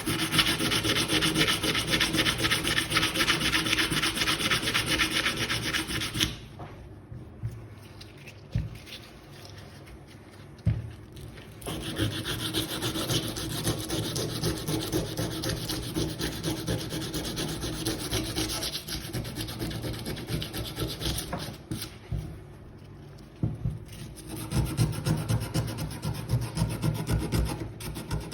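Rapid back-and-forth abrasive scrubbing on a rusty metal hand tool, scouring the rust off by hand. The strokes stop for a few seconds about a quarter of the way in and again about two-thirds in, then resume.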